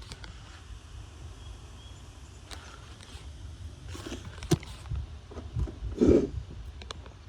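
Strong wind buffeting the microphone in a steady low rumble, with a handful of short knocks or bumps in the second half, the loudest about six seconds in.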